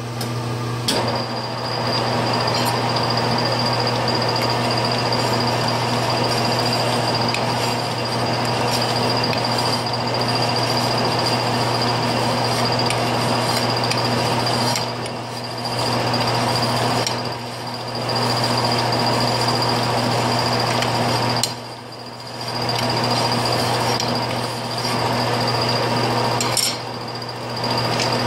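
Large metal lathe running as a hand file is held against the spinning stainless-steel threads to clean up their crests, a steady metal-on-metal rasp over the machine's hum. It starts about a second in and eases off briefly several times.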